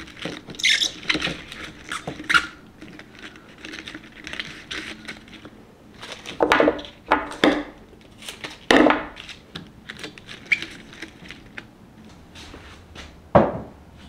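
Tulip stems and leaves being handled and trimmed with scissors: light rustling of leaves, then several crisp crunching snips as the stems are cut, and a single knock near the end.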